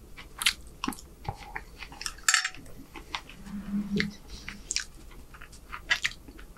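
Close-miked chewing of a mouthful of food: wet mouth clicks and lip smacks, with one loud sharp smack a little after two seconds in and a brief low hum a second or so later.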